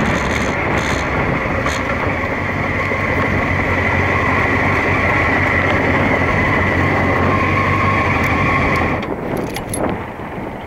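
Honda CBR600 F2 motorcycle's inline-four engine running at speed under steady wind rush, recorded from on board the bike. About nine seconds in, the engine note and wind noise drop away sharply.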